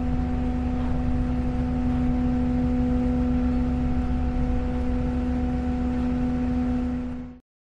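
A boat docking, its engine running steadily: a low rumble under a droning hum that holds one pitch. It fades out quickly and stops about seven seconds in.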